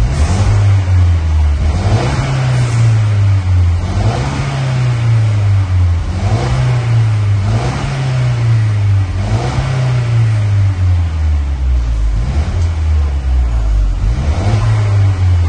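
Mercedes W212 E-Class four-cylinder engine with a Fox aftermarket exhaust, revved repeatedly on a stationary car: its note climbs and falls back every couple of seconds, settles to a low idle for a moment past the middle, then revs again.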